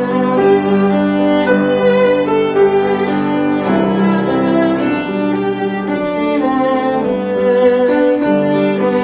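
Instrumental music on bowed strings, violin and cello, playing held notes that change every half-second or so.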